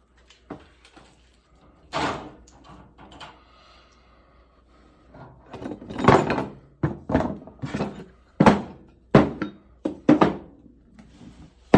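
Robot leg parts and motors being set down and moved aside on a work surface: a string of irregular clunks and knocks, with a faint scrape, coming thicker from about six to ten seconds in.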